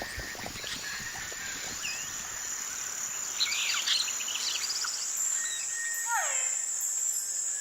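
Tropical nature ambience: a steady high insect drone, with bird calls over it. There is a quick cluster of chirps about three and a half seconds in, and a clear whistled call sliding downward near the end.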